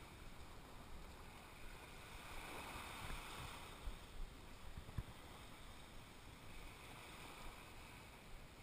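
Faint, steady wash of small waves breaking on a sandy beach, mixed with wind on the microphone, with a couple of light knocks about three and five seconds in.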